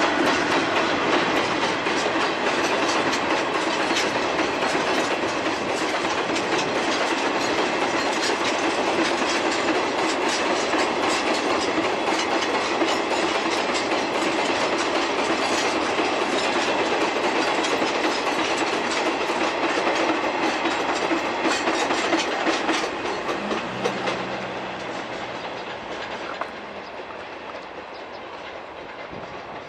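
Chichibu Railway Woki 100 ore hopper wagons rolling past on the rails, their wheels clattering steadily over the rail joints. Over the last few seconds the clatter fades as the train draws away, with a brief low hum as it dies down.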